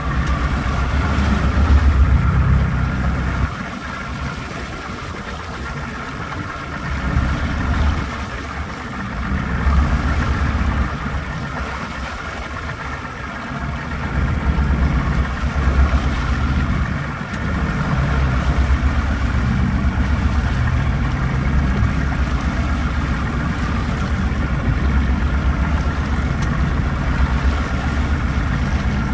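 Yamaha V225 V6 two-stroke outboard running steadily at trolling speed, with water washing in its wake and a heavy low rumble that swells and fades every few seconds.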